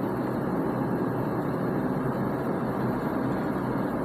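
Steady background noise, even and unbroken, with no distinct events.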